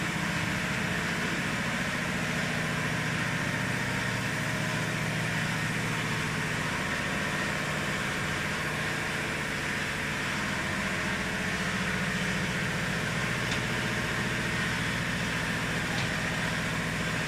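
Glue-spraying laminating machine for non-woven cotton composite running: a steady, even machine hum and noise from its motors and drive.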